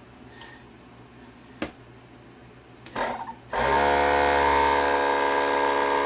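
Small 12-volt air compressor from a train horn kit kicking on suddenly about three and a half seconds in, as its last wire is connected, then running steadily as it starts filling its air tank. A click a little over a second in and a brief rustle just before it starts.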